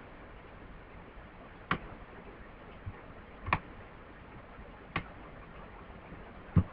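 Computer mouse clicking: four short, sharp clicks spaced about a second and a half apart over faint room hiss.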